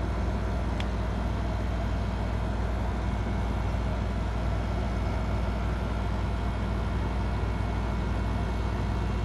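Window air conditioner running, heard from its outdoor side: a steady low compressor hum with the whoosh of the condenser fan blowing out hot air. A faint tick about a second in.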